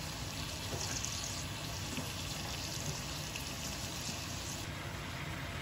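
Sliced onions sizzling in oil in a frying pan, a steady hiss.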